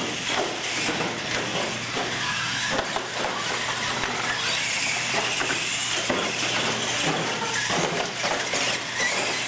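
R/C monster trucks racing on a concrete floor: electric motors and gearboxes whining, rising and falling in pitch as the trucks speed up and slow down, with tyre noise and a few short knocks.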